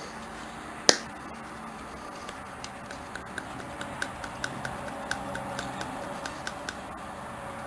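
A single sharp click about a second in, then a quick, even run of light metallic ticks, about four a second, for several seconds, as the WD-40 can and rusty pliers are handled.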